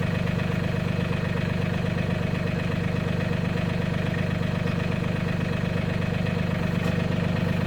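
Mahindra 1626 tractor's diesel engine idling steadily.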